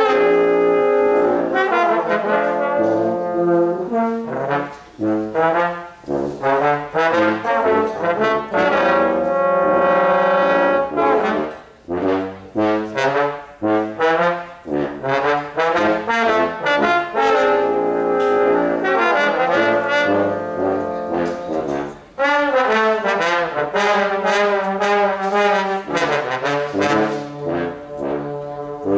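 A brass quartet of three trombones and a euphonium playing a piece together in harmony, with short breaks between phrases about 5, 12 and 22 seconds in.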